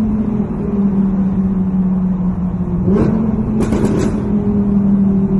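Audi R8 engine through a Quicksilver exhaust, running at a steady speed. About three seconds in there is one sharp crack, then a quick run of exhaust crackles and pops.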